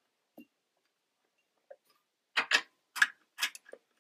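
Socket ratchet wrench clicking as bolts on a treadmill motor mount are tightened: a run of sharp, uneven clicks starting about two seconds in and lasting a second and a half.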